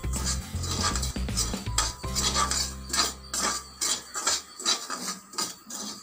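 Perforated metal ladle scraping and clinking against an aluminium kadai while stirring dry semolina as it is dry-roasted, about two or three strokes a second.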